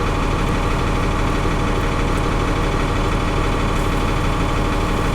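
John Deere 4230 tractor's six-cylinder diesel engine running steadily at low speed, heard from inside its Sound-Gard cab.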